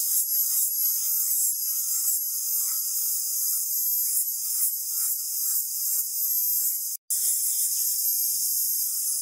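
Angle grinder with a flap disc grinding a forged steel piece: a steady high hiss with a thin whine running through it. The sound drops out for an instant about seven seconds in.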